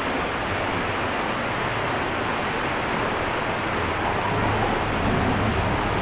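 Steady rushing outdoor noise, with a low rumble swelling about four seconds in.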